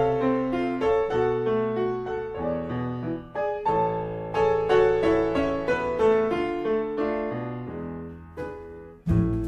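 Piano music: a slow tune of single notes over chords, each note struck and left to fade, growing quieter toward the end. Just before the end it gives way to a louder piece with drums and bass.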